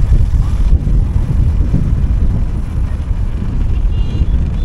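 Loud, uneven low rumble of wind buffeting the microphone, with a vehicle running beneath it.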